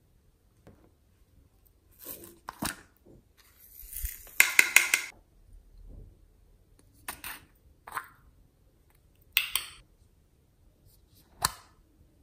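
Small plastic containers of slime add-ins being handled and opened: scattered sharp clicks and taps, with a short burst of rapid rattling clicks about four and a half seconds in.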